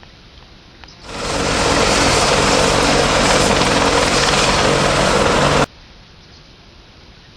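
Bumblebee buzzing loudly, very close: a dense, steady buzz that swells in about a second in, holds for about four and a half seconds and cuts off suddenly.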